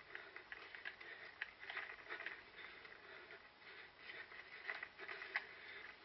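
Faint footsteps of a runner crossing rough ground, an uneven patter of footfalls with brushing and crunching, heard from a head-mounted camera.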